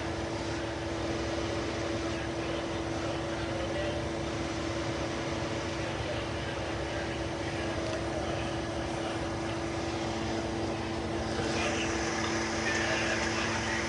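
A vehicle engine running steadily, a constant hum with a steady low tone under even noise.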